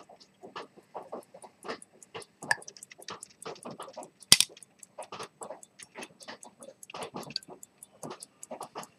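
Zenith pocket watch ticking at about five ticks a second. Irregular small clicks and knocks of the hinged silver case being handled run under it, with one loud sharp metal click about four seconds in.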